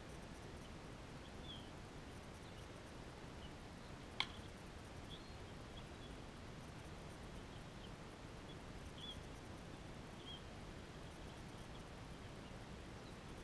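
A single sharp crack of a bat hitting a ball, about four seconds in. Faint high bird chirps come and go behind it.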